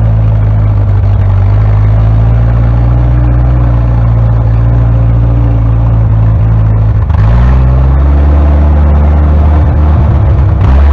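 1956 Jeep CJ5's Willys Hurricane F-head four-cylinder engine running under way through snow, heard up close. The engine note changes about seven seconds in, then climbs.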